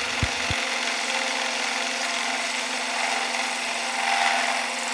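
A drill press spinning an end mill as it cuts a metal plate held in a cross-slide vise, a steady grinding cutting noise over the hum of the drill press motor.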